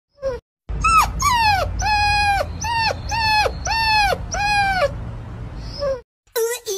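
A puppy whining: seven high, piercing whimpers in quick succession, the first two falling steeply in pitch and the rest held level before dropping off at the end. Near the end a husky starts a lower, wavering howl.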